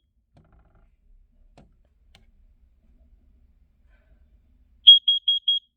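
Carbon monoxide alarm sounding its alarm pattern: quiet for nearly five seconds, then a group of four quick, high-pitched beeps near the end.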